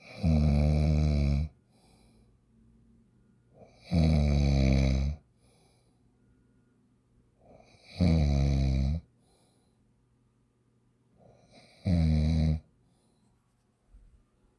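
Loud, regular snoring: four long, buzzing snores about four seconds apart, each lasting a second or so, with faint breaths between; the last snore is the shortest.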